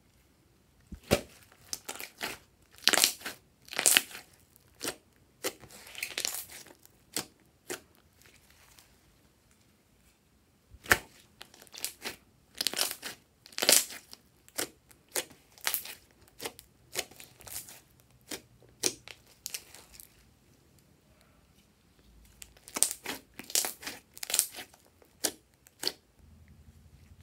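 Glossy slime squeezed and pressed by hands, giving irregular squelching pops as trapped air is pushed out, with pauses of a couple of seconds between runs of pops.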